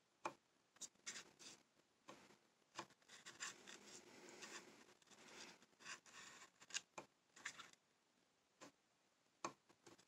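Knurled dial of a Gougler keyless padlock turned slowly by hand: faint sharp clicks now and then, with a stretch of scratchy rubbing from the metal mechanism in the middle.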